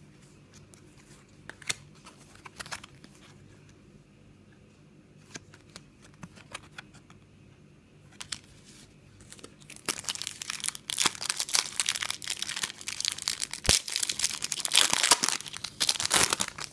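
A few light clicks of trading cards being shuffled in the hands, then, about ten seconds in, a foil trading-card packet crinkling loudly as it is torn open.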